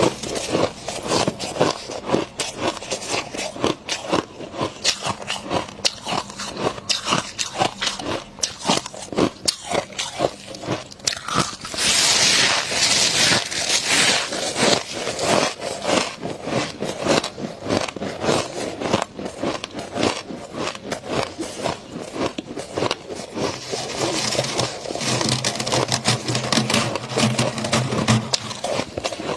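Freezer frost being bitten and chewed close to the microphone: dense, rapid crunching. There is a louder, hissier stretch of about two seconds near the middle.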